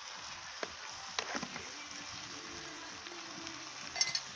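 Chicken frying dry in a kadai with masala and salt, a faint steady sizzle. A few light knocks come through it, the sharpest near the end.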